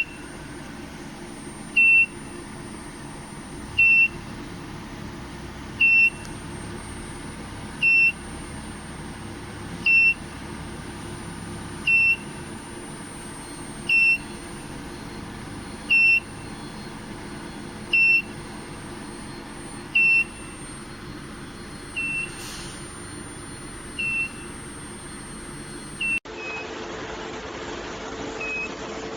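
Electronic warning beeper sounding a short, high beep about every two seconds over a steady industrial hum; the beeps come less evenly near the end.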